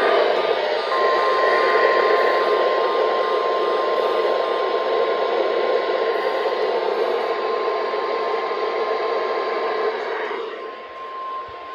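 NOAA Weather Radio warning alert tone, a single steady tone near 1050 Hz held for about nine seconds over loud radio static. It breaks off about ten seconds in and starts again a moment later, signalling a new alert broadcast.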